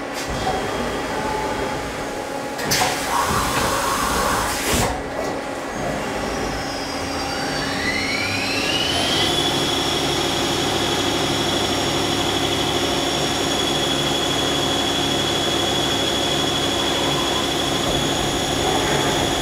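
Mazak Quick Turn 10N CNC lathe starting its cycle: a few seconds of clattering noise, then the spindle speeding up to about 2000 rpm with a rising whine that levels off about nine seconds in. The whine then holds steady as the drill feeds into the part.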